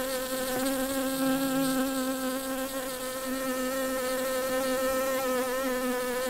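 A bee buzzing steadily, one unbroken buzz at a fairly even pitch that wavers slightly.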